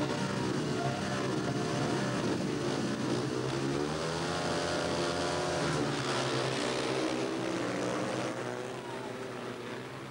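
Four 500cc single-cylinder speedway bike engines revving at the starting gate, then opening up to full throttle together as they launch off the start about halfway through, pitch climbing as they accelerate. The engines get quieter near the end as the bikes pull away into the first bend.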